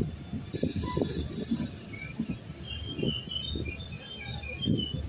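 Passenger train running along the track, heard from an open coach door: an uneven rumble and clatter of wheels over rails, with a brief hiss about half a second in and short high squeaks scattered through.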